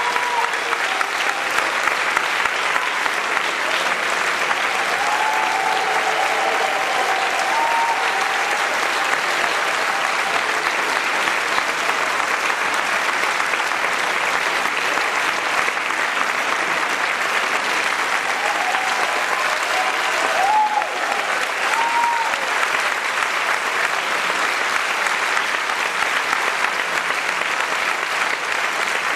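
Theatre audience applauding steadily, a dense clapping that holds without a break, with a few voices calling out over it.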